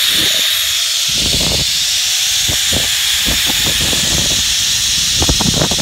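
Rush of a zip-line ride: the trolley running along the steel cable gives a steady high hiss, with wind buffeting the microphone in low, uneven gusts.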